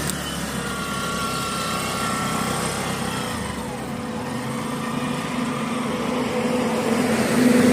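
Engine running. A low steady hum grows stronger in the second half and gets louder near the end.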